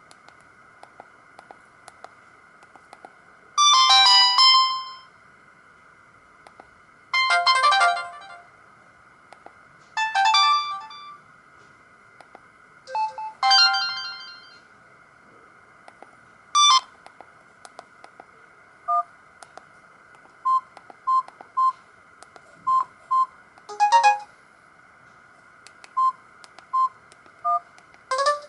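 Samsung GT-E2120 phone stock ringtones played in short snatches, five different tunes each cut off within about a second, followed by a string of about a dozen short single beeps.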